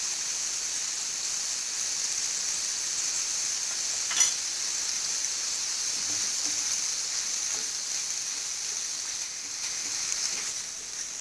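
Sliced squid sizzling steadily in butter and oil in a frying pan, with one sharp click about four seconds in. Near the end a silicone spatula stirs and scrapes the squid around the pan.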